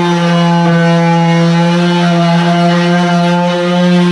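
Stanley FatMax 18-volt cordless orbital sander running steadily at full speed, a loud, even motor hum holding one pitch.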